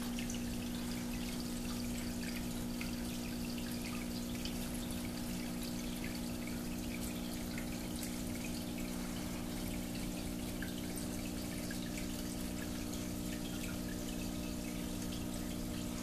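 Water of a slate wall fountain running down its glass panel and trickling into a pebble-filled basin, a steady splashing with small drips. A steady low hum runs underneath.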